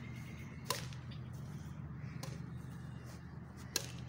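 Badminton racket strikes on a shuttlecock during a rally: three sharp hits about a second and a half apart, over a steady low hum.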